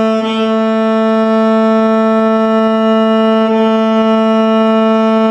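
Cello's A string bowed in one long steady note at about 221 Hz, in tune with the A4 = 442 Hz reference.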